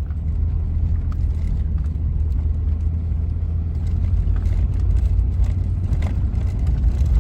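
Steady low rumble of a vehicle driving along a snow-covered road, engine and tyre noise heard from inside the cab.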